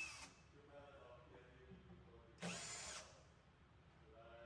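A drill with a Phillips bit runs in one short burst, about half a second long, a little over halfway through, backing out a lid retaining screw.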